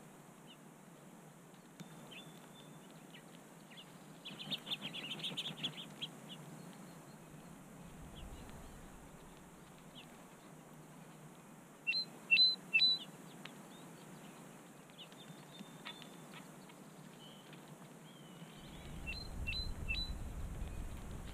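Small songbirds chirping in short, high notes: a quick twitter about five seconds in, three sharp, loud chirps around twelve seconds in, and a few more near the end. A low rumble rises near the end.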